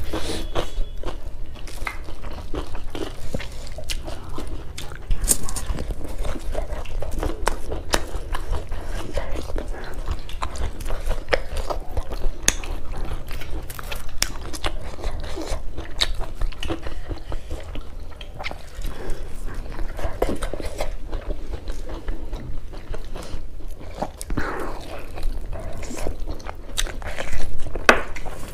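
Two people eating by hand close to the microphone: steady chewing with many sharp, wet mouth clicks, over a low steady hum.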